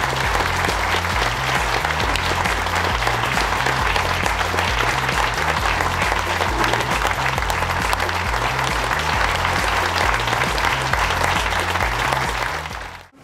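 An audience applauding, with background music's repeating bass line underneath; both fade out at the very end.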